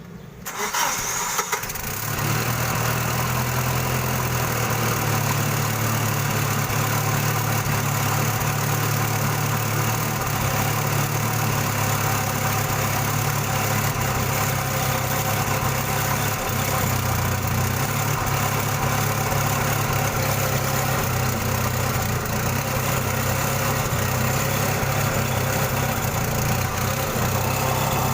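Gasoline forklift engine starting up about half a second in and catching within a second or two, then running steadily.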